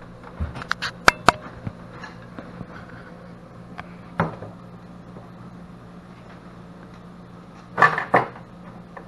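Metal clinks and clanks of tools and parts being handled on a golf cart gas engine, a couple of sharp strikes about a second in, another near four seconds and a louder cluster near eight seconds, over a steady low hum.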